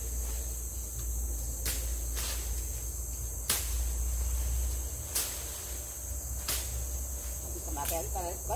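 Chopping blows into a standing tree trunk: about six sharp strikes, irregularly spaced a second or so apart, over a steady high drone of forest insects.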